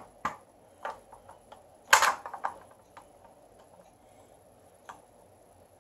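Hard plastic clicks and taps from fingers pressing and handling the ball body of a Spin Master BB-8 toy: a few single clicks, a louder quick cluster of clatter about two seconds in, and one more click near the end.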